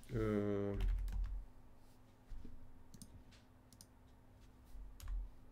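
A person's voice sliding down in pitch for about a second, wordless, followed by a few scattered keystrokes on a computer keyboard as a command is typed.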